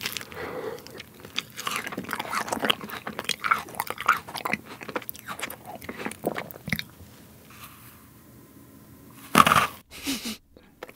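Close-miked chewing of a chilled whipped-cream fruit sandwich on soft white bread filled with grapes, strawberries and kiwi: a run of small mouth clicks, a short lull, then a loud fresh bite about nine seconds in.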